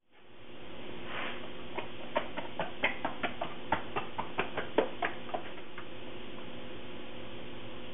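Hands patting and pressing wet 77%-hydration baguette dough in a plastic tub, about fifteen short, irregular smacks over a few seconds, under a steady hum.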